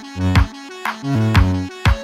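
Electronic background music with a steady beat, drum hits about twice a second over a bass line and held chords.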